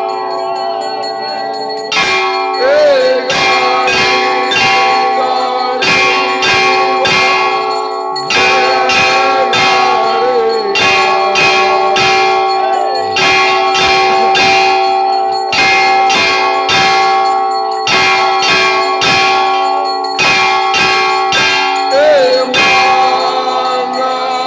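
Temple bells clanged rapidly and continuously for the aarti, several bells ringing over one another, with a few brief pauses in the striking.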